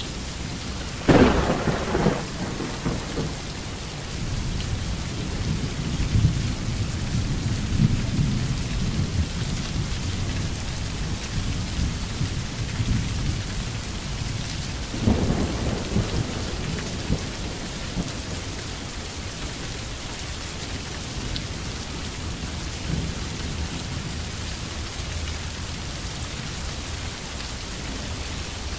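Steady rainfall with thunder: a sharp thunderclap about a second in rolls into a long low rumble, and a second clap comes about halfway through, also followed by rumbling.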